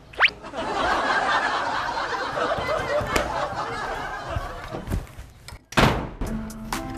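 A quick rising whistle-like sound effect, then a dense rushing noise for about five seconds, ending in a carved wooden door slamming shut about six seconds in.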